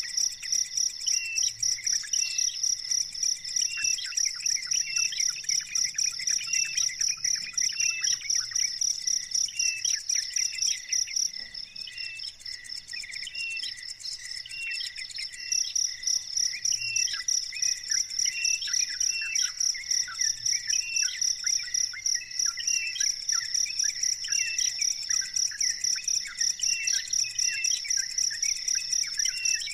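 Cricket trilling steadily in a high, pulsing song, which breaks off for about four seconds midway and then resumes. Short bird chirps repeat about once a second underneath.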